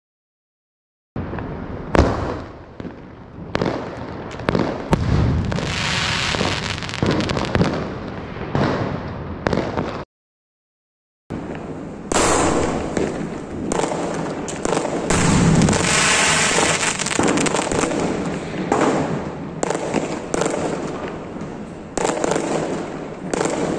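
A 4-inch aerial firework shell (sky shot) going off: a sharp bang about two seconds in, then dense crackling and popping. The sound cuts out completely for about a second midway, then the crackling and bangs go on.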